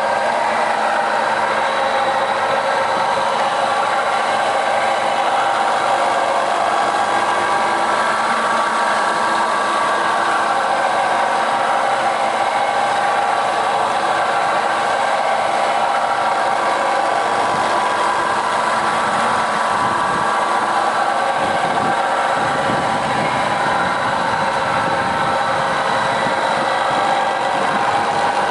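KOFAMA Koronowo OLNG-7 sharpening machine running steadily: a continuous motor hum with several steady tones, slightly fuller in the low range near the end.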